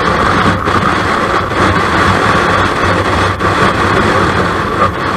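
Steady wind noise rushing over a bike-mounted camera's microphone at road speed, with the low, even drone of a Kawasaki Versys 650's parallel-twin engine cruising underneath.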